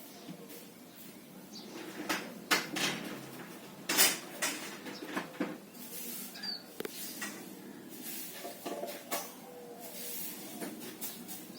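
Irregular clicks and knocks of tools and hard parts being handled while working on an electric water heater, loudest twice, about two and a half and four seconds in.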